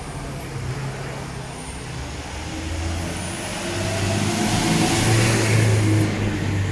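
A small truck's engine growing louder as it drives past close by, loudest about five to six seconds in, then easing off.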